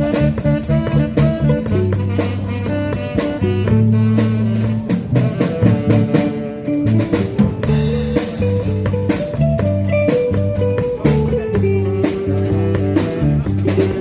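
A band playing an instrumental intro: a drum kit keeps a steady beat under a repeating bass line and a guitar melody.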